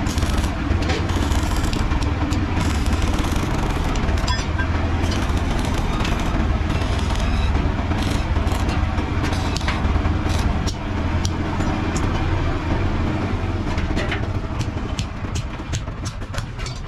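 Stick arc welding on steel: the electrode's arc crackling and spitting as it joins flat steel bar to a galvanized sheet-steel wheelbarrow tray, over a steady low hum. Near the end the welding stops and a run of sharp clicks and taps is heard.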